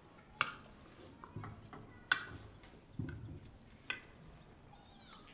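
Cutlery clinking against plates and dishes at a table: a few sharp, separate clinks a second or two apart, with soft low thuds between them.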